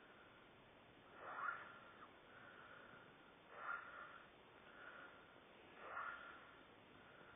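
A sleeping person snoring in a slow, even rhythm: three snores about two and a half seconds apart, with a softer breath between each.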